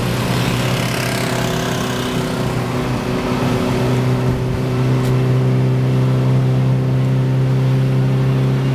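Daihatsu Xenia 1.3's four-cylinder petrol engine pulling the car uphill in gear, heard from inside the cabin: a steady drone that rises a little in pitch and loudness about three to four seconds in, then holds.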